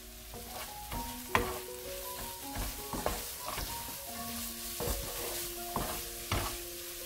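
Garlic scapes and anchovies sizzling in a frying pan as they are stirred and tossed with a wooden spatula, with sharp scrapes and knocks of the spatula against the pan, the loudest about a second in.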